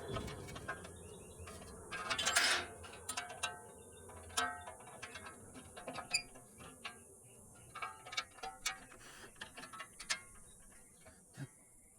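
Hand tools working on a condenser fan motor assembly: irregular metallic clicks and taps, with a brief scrape about two seconds in.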